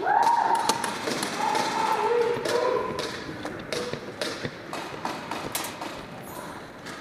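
Voices calling out in a large echoing hall, with several held shouts in the first few seconds, over scattered sharp knocks, taps and footsteps on a concrete floor.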